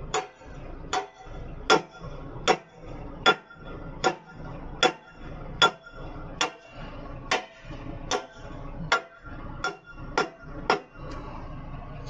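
Hammer blows on steel at the fly-jib mount of an Effer loader crane: about fifteen sharp, ringing metallic strikes, a little more than one a second. The blows are driving home a stiff mounting pin that is slightly out of line.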